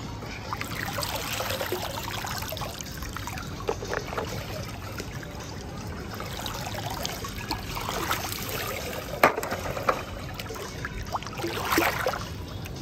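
Pool water sloshing and splashing as a plastic toy truck is pushed through it by hand, with scattered small clicks and one sharp click about nine seconds in.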